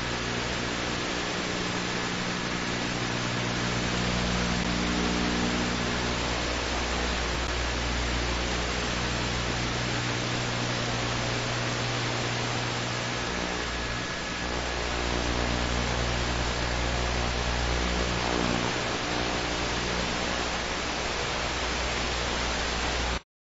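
Helicopter noise: a steady, loud rushing hiss with a low drone of engine and rotor tones underneath that swells and eases slightly. It cuts off abruptly near the end.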